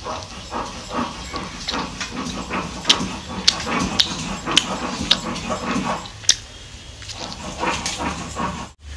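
Close-up chewing and lip-smacking while eating a piece of cooked chicken by hand, with sharp wet smacks about every half second through the middle and a short lull near the end.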